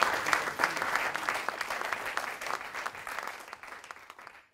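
Audience applauding: a dense patter of many hands clapping that slowly thins and fades, then cuts off near the end.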